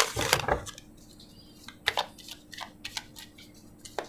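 A deck of large oracle cards being shuffled by hand: a quick flurry of card flicks at the start, then scattered single light snaps and taps as the cards are cut and slid.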